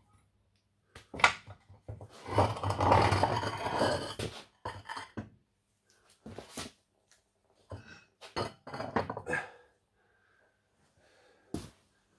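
Fordson Major's steel drawbar assembly being pulled out of the tractor's rear: a sharp clink, then a couple of seconds of metal scraping and rattling as it slides out, followed by scattered clanks and knocks as the heavy parts shift and are set down.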